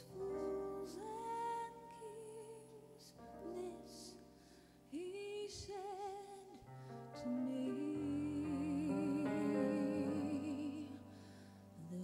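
A woman singing a slow ballad solo with strong vibrato, accompanied by keyboard piano; a long held note wavers for about three seconds near the end.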